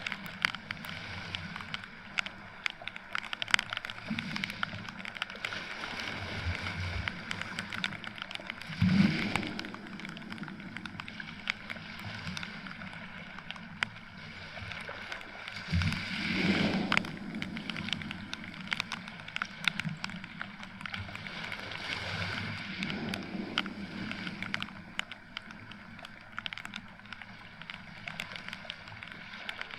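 Rain falling on a beach, with many sharp close drop ticks over a steady hiss, and small waves washing in twice, about nine and sixteen seconds in.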